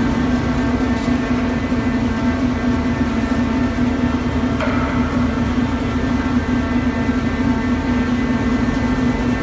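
Steady machine hum of an earthquake shaking table's drive running, a strong low tone with several fainter steady higher tones over it.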